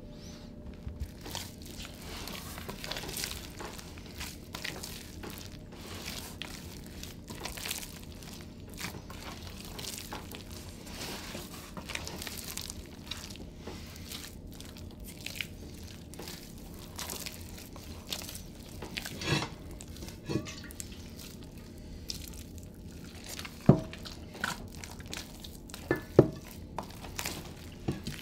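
Hands mixing wet bread dough in a plastic basin: a continuous run of soft squelches, rustles and sticky clicks, with a few louder wet slaps and pops in the second half.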